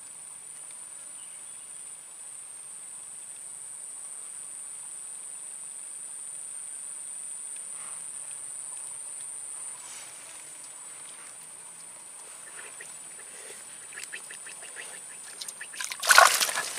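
Steady high-pitched insect drone, then near the end a sudden loud splashing and thrashing as a hooked lembat catfish is yanked out of its water-filled burrow.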